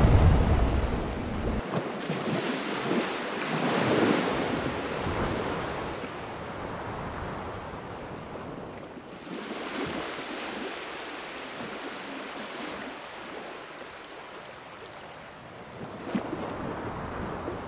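Wind gusting over the microphone on a ship's open deck, with a steady noise of wind and sea. It is loudest, with a deep rumble, in the first second or two, then settles.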